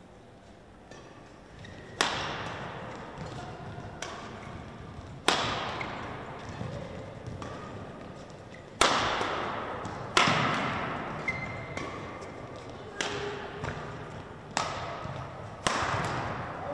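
Badminton rally: a shuttlecock is struck by rackets about seven times, each hit a sharp crack that rings on in the large hall. Short squeaks of court shoes on the floor come between the hits.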